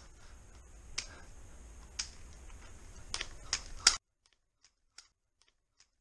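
Hard plastic clacks of Rubik's cubes in the hands as they are juggled and turned: single sharp clicks about a second apart, then three in quick succession about four seconds in. After that, only a few faint ticks.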